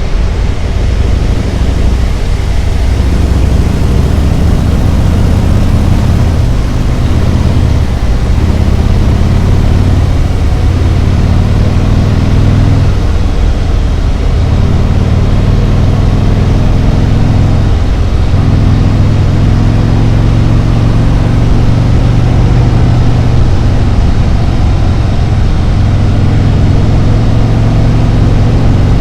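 Harley-Davidson Road Glide's V-twin engine running at road speed, with wind rushing over the microphone. The engine note dips briefly a few times, about 7, 13 and 18 seconds in.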